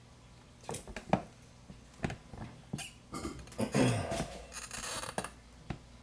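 Scratchy rustling with a few sharp clicks and taps, starting about a second in and thickest around the middle, picked up by a clip-on microphone that has fallen off the shirt.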